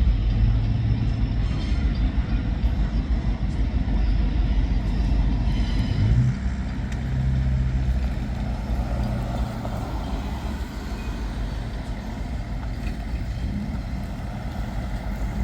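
Freight train's diesel locomotive running with a steady low drone as the train moves across the crossing. About six seconds in the engine note shifts up and the sound then gets quieter.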